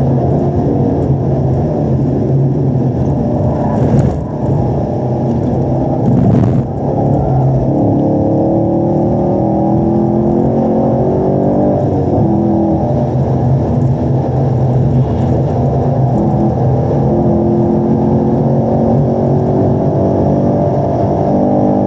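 2018 Camaro SS 1LE's 6.2-litre V8 driven hard on track, heard from inside the cabin and muffled. The engine note breaks up under braking and downshifting about four to seven seconds in, then rises steadily in pitch at full throttle, with one upshift partway through.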